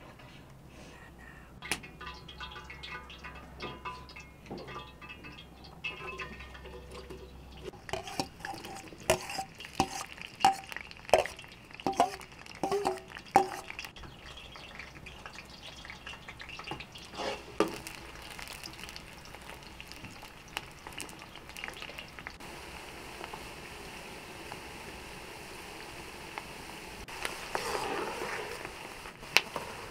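Metal bowl and skimmer clinking against a large metal cooking pot several times. Then onions sizzle steadily as they fry in hot oil, stirred with a ladle, the first stage of a pilaf.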